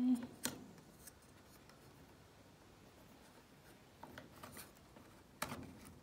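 Small sharp clicks of hard plastic parts being handled as a plastic bracket is fitted over a washing machine's water inlet valves: one click about half a second in, a few faint ticks around four seconds, and a louder click near the end, with quiet handling between.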